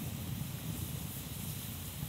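Steady low rushing outdoor noise with an even hiss above it and no distinct clicks or pops.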